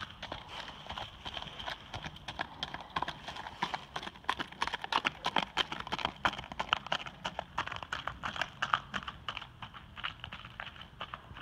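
Hooves of a young Tennessee Walking Horse gelding striking a gravel driveway under a rider: a quick, even run of crunching hoofbeats that grows louder in the middle as the horse passes close, then fades as it moves away.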